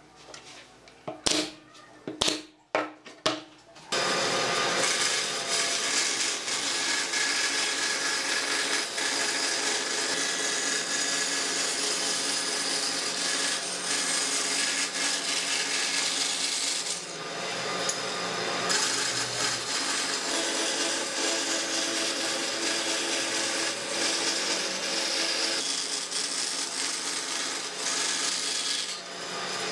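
Band saw running and cutting along a curved line through a wooden board, a steady whir with the hiss of the blade in the wood. It is preceded by a few sharp knocks in the first seconds, and the sound dips briefly a little past halfway.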